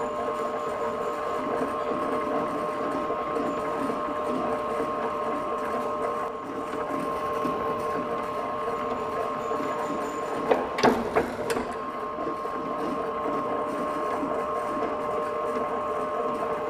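Electric motor of a soap stamping press running with a steady hum. About ten and a half seconds in comes a quick cluster of three or four sharp clacks.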